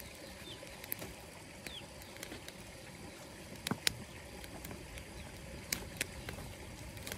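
A burning pile of dry bamboo and brush crackling, with scattered sharp pops and snaps, the loudest a little past the middle. A few short falling bird chirps come in the first two seconds.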